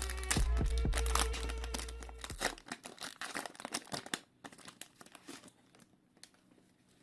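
Trading-card pack wrapper crinkling and tearing in quick rustles that thin out and fade toward the end. Background music with a deep bass plays under it and cuts off about two seconds in.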